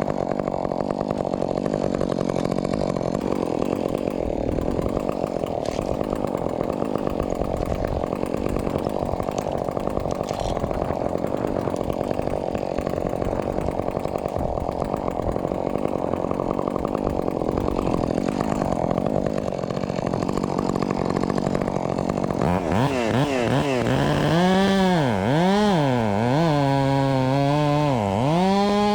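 Husqvarna 562XP chainsaw (a modified one) cutting wood under load at a steady speed. About twenty-two seconds in, its engine speed starts rising and falling repeatedly, roughly once a second.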